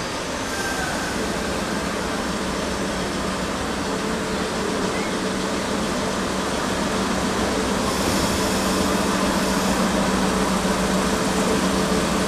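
DE10 diesel-hydraulic locomotive running as it draws slowly into the station: a steady engine hum that grows gradually louder as it nears.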